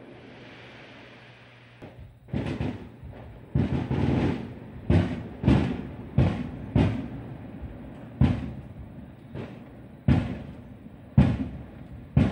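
Fireworks: a fizzing, crackling hiss for the first second or so, then a rapid series of aerial shell bursts, about a dozen booms in ten seconds.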